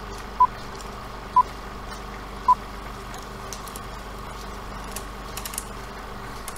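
Old-film countdown-leader sound effect: three short high beeps about a second apart, over a steady film-projector whir with crackle and a few faint clicks that runs on after the beeps stop.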